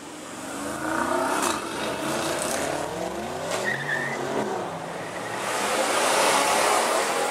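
Supercar engines accelerating hard: a rising engine note with gear changes from about a second in, then a louder rush of another car speeding by near the end.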